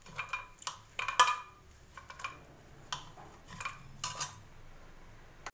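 Steel ladle knocking and scraping against the inside of an aluminium pressure cooker as soft-boiled kidney beans are mashed with its back. The knocks come irregularly, the loudest about a second in.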